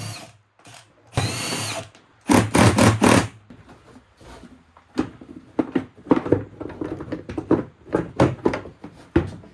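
Impact wrench running in two short bursts, about a second in and again about two seconds in, backing bolts out during an engine teardown. Later come a run of short metallic knocks and clinks from tools and parts.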